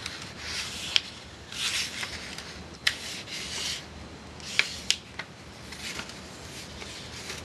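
A sheet of printing paper being folded by hand: soft rustling swishes as it slides and is rubbed along a fold, with several sharp crackles of the paper.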